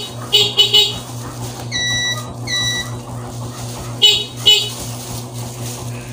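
Two short high-pitched horn toots in quick succession about two seconds in. Short squeaky chirps come before and after them, over a steady low hum.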